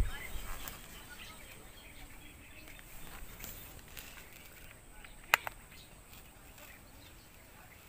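Quiet outdoor pond-side ambience with faint bird chirps. A dull bump at the very start, then a sharp click about five seconds in, followed by a smaller one.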